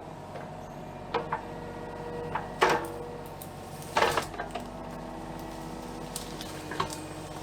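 Kubota KX033-4 mini excavator's diesel engine running steadily while it works brush, with four sharp knocks or cracks spread through it.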